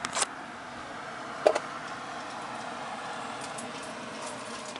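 Steady outdoor background hiss with sharp handling clicks from the handheld camera: a pair at the start and a louder one about a second and a half in.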